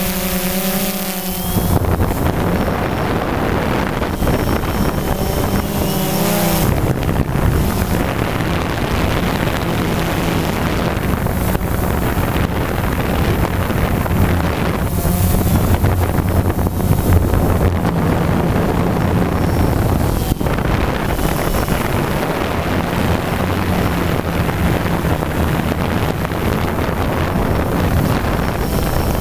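DJI Phantom quadcopter's motors and propellers giving a steady low buzz, mixed with wind rushing over the microphone.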